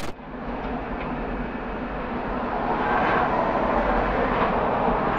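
Steady mechanical rumble with hiss, like heavy machinery or an engine running, growing a little louder over the first few seconds.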